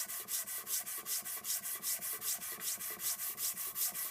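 Steel block-plane blade rubbed back and forth on a sharpening stone, a rapid, even scraping of about four or five strokes a second, as the back of the blade is flattened and polished.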